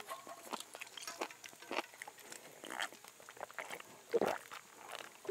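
Close-up chewing of grilled chicken knee cartilage, with many small, irregular crunches and wet mouth clicks.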